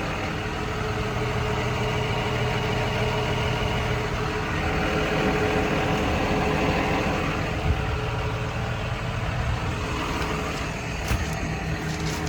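John Deere 210G LC excavator's diesel engine idling steadily, with a few light clicks near the end.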